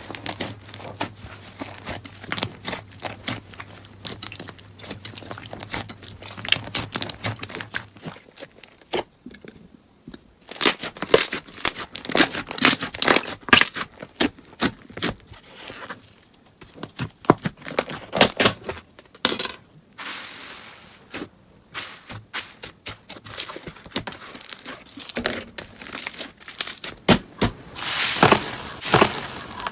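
Slime being squeezed, pressed and stretched by hand, giving a dense run of small crackles, pops and crinkling squelches. The crackles grow louder and come in thicker clusters from about ten seconds in.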